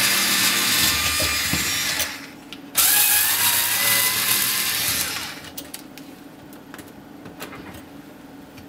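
Black+Decker cordless screwdriver backing out the two screws that hold a dishwasher circulation pump's retaining clip. It runs once until about two seconds in, then again from about three to five seconds in. A few light clicks and taps of handling follow.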